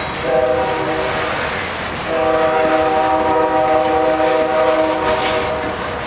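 Freight train cars rolling past with a steady rumble, while a locomotive air horn sounds several notes at once: a short blast near the start, then a long one of about three seconds from about two seconds in.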